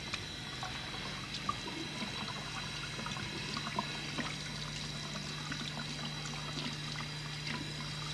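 Water running and trickling from a tap, with small splashes, over a steady low hum.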